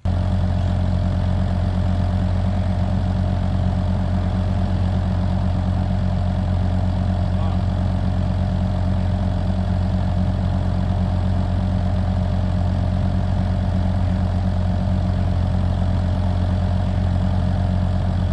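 Kubota U55-4 mini excavator's diesel engine running steadily at idle, a constant low hum.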